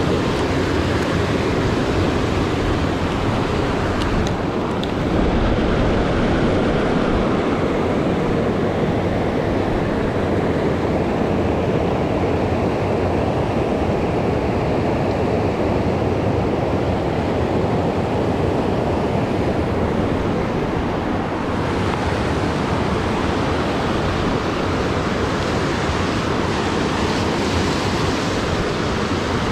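Mountain creek water rushing, a steady loud wash of noise.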